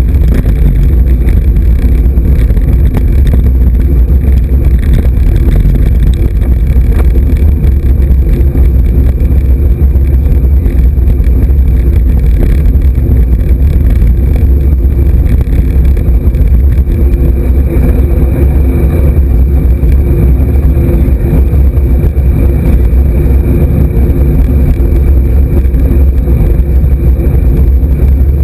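Steady, loud low rumble of wind buffeting and road vibration picked up by a camera mounted on a road bike riding at speed on tarmac.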